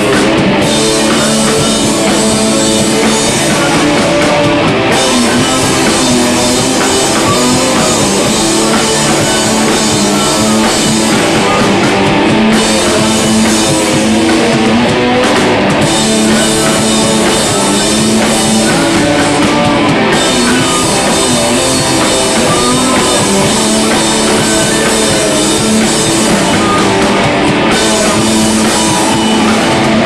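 Live rock band playing loud: electric guitar, bass guitar and drum kit with cymbals, without pause.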